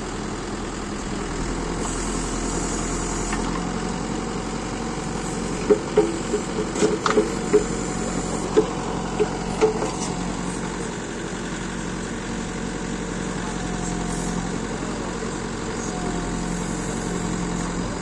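Farm tractor's diesel engine running steadily to drive a tractor-mounted backhoe's hydraulics as it digs. About six seconds in there is a flurry of short sharp knocks lasting about four seconds.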